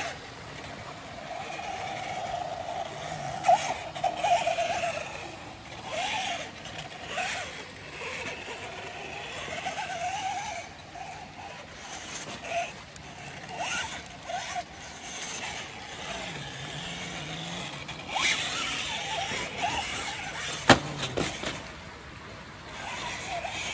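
Axial Wraith Spawn RC rock crawler's electric motor and geartrain whining as it crawls over rock, the pitch rising and falling with the throttle. Tires and chassis scrape and knock on the rock, with one sharp knock near the end.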